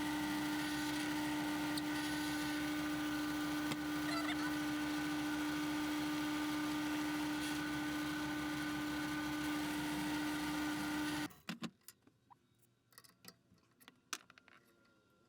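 Engineer's drill press running steadily with an even motor hum while boring a counterbore for a bolt head in wood; it switches off abruptly about eleven seconds in, followed by a few light clicks and knocks.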